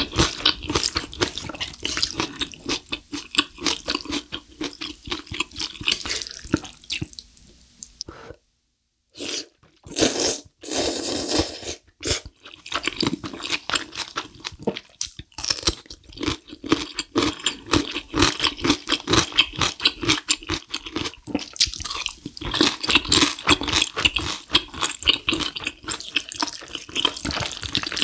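Close-miked eating sounds: wet slurping and chewing of spicy instant black bean noodles, with crunchy bites. The sound drops out for about a second and a half around eight seconds in.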